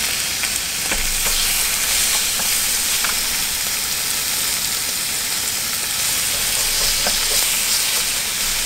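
Thin slices of raw pork sizzling steadily on a hot electric grill plate, with a few faint clicks as more slices are laid down.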